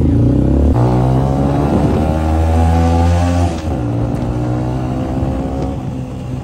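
Honda CG 125 single-cylinder four-stroke engine running through an aftermarket HKS exhaust while being ridden. The revs climb steadily for a few seconds, then fall away about three and a half seconds in.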